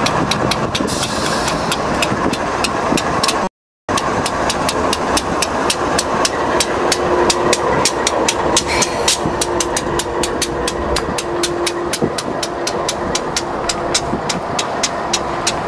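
CSX diesel freight train passing close by: the locomotives' diesel engines run, then the freight cars roll past with a fast run of clicks from the wheels on the rail. The sound cuts out for a moment about three and a half seconds in.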